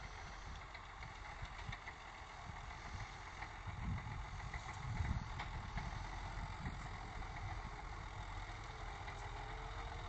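Claas Ares 836 RZ tractor running steadily under load, pulling a Vogel & Noot Terramat power harrow and a Rabe Multidrill seed drill through tilled soil. The low rumble swells briefly twice near the middle.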